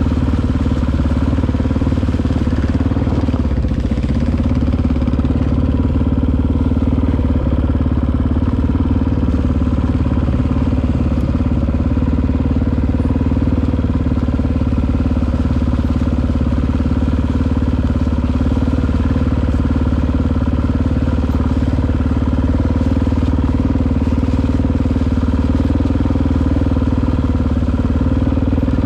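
Honda XR650R's big single-cylinder four-stroke engine running at low, steady revs as the dirt bike is ridden slowly on a trail.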